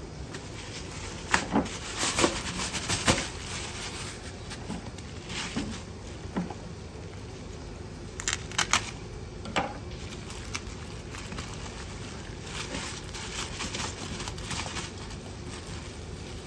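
Plastic bag of raw chicken crinkling and rustling as it is handled and slit open with a knife over a steel bowl, with clusters of sharp crackles.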